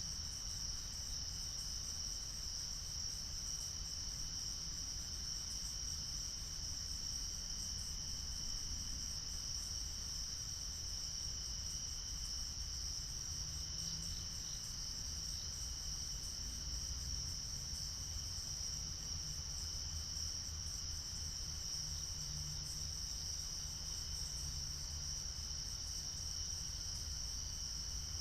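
A chorus of crickets trilling steadily, high-pitched and unbroken, over a faint low rumble.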